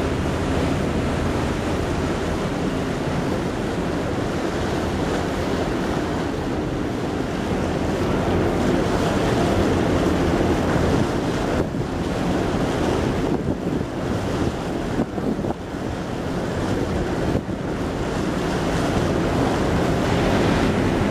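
Wind rushing over the microphone and water washing past, aboard a moving boat, with a steady low engine hum underneath; the wind noise dips and swells between about halfway and three quarters of the way through.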